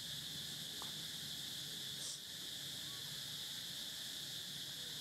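Steady high-pitched drone of insects calling, with a couple of faint short chirps over it.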